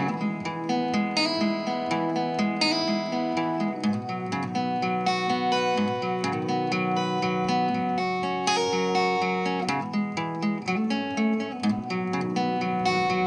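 Guitar music, strummed and plucked, played back through a Pioneer 202W spring reverb amplifier with the reverb turned up heavy, so the notes ring on and blur into one another.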